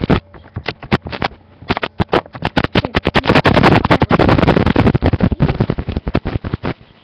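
Plastic K'nex roller coaster pieces clicking and rattling in a rapid, irregular run, loudest in the middle, then stopping abruptly near the end.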